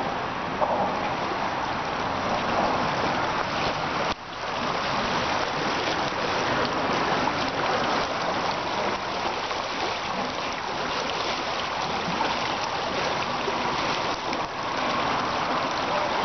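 The Alme, a small lowland river, rushing steadily over shallow riffles. The sound is a continuous, even hiss of flowing water, with a brief dip about four seconds in.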